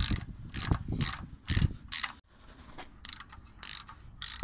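Hand ratchet wrench on a socket extension clicking in short back-and-forth bursts as bolts are tightened on an engine's transmission adapter plate, with a pause of about a second partway through.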